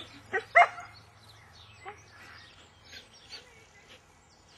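A dog barking: three short barks in the first second, the third the loudest, then only faint short sounds.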